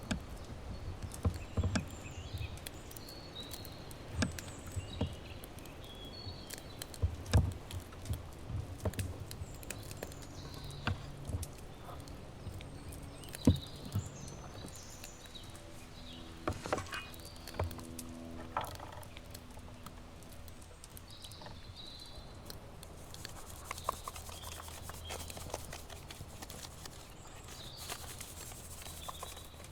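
Scattered knocks, taps and rubbing from objects being handled at a campsite, with short bird chirps in the background. A brief low hum sounds around the middle.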